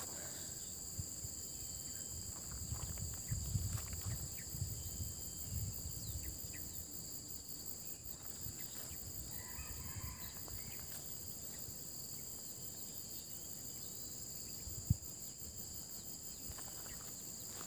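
Steady high-pitched insect chorus, a constant shrill drone holding two pitches. Low rumbling on the microphone a few seconds in and a single sharp click near the end.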